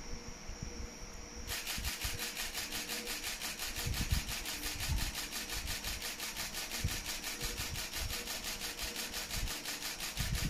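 Camera shutter firing in a long continuous burst, a rapid run of evenly spaced clicks starting about a second and a half in, shooting a handheld focus-stacking sequence for a macro photo. Crickets trill steadily before the burst starts, with a few low handling bumps.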